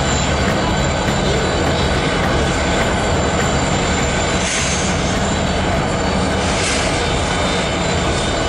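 Union Pacific 4014 Big Boy steam locomotive venting steam from the top of its boiler: a steady, loud roar of escaping steam. Two stronger hissing surges come about four and a half and six and a half seconds in.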